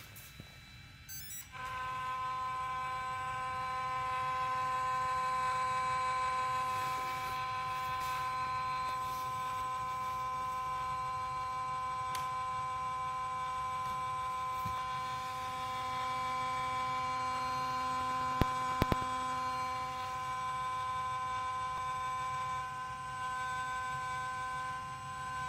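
Yuneec C23 gimbal camera giving off a steady, high buzzing whine that starts about a second and a half in, while the camera shakes: a malfunctioning camera. A few sharp clicks come about three quarters of the way through.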